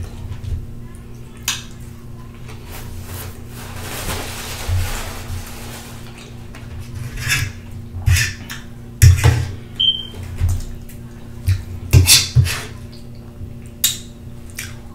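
Close-miked eating sounds of fried fish and spaghetti: wet chewing and mouth noises, with a metal fork clicking and scraping against the baking tray, the sharpest clicks about eight, nine and twelve seconds in.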